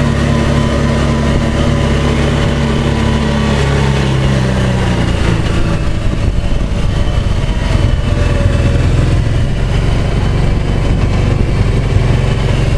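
A motor vehicle's engine running steadily; its pitch drops about five seconds in.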